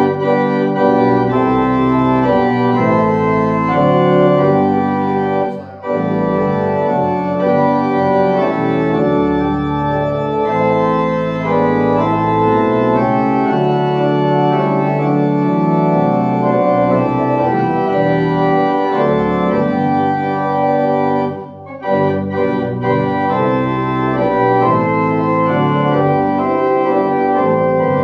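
Organ playing a slow voluntary of sustained chords after the dismissal, the closing postlude of the service, with two short breaks between phrases.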